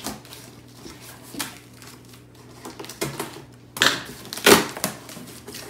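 A taped cardboard box being opened by hand: scratching and small clicks at the taped seam, then several loud rips of packing tape and cardboard about four seconds in.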